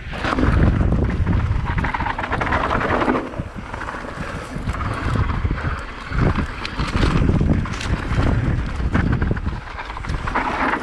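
Wind buffeting the microphone and tyres rumbling over a rough dirt and rock trail as an electric mountain bike descends at speed, with scattered knocks and rattles from the bike over bumps.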